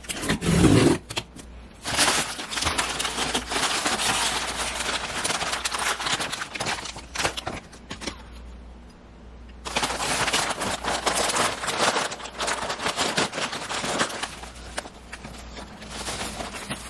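Tissue paper and bubble wrap crinkling and rustling as packing is handled inside a cardboard box: a dense crackle that runs in two long stretches with a short lull about halfway through. A brief loud scrape on the cardboard box comes first.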